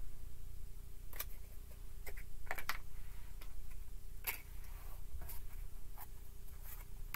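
Tarot cards being handled: light, scattered clicks and flicks as cards are drawn from the deck and laid on a table, with a sharper tap right at the end.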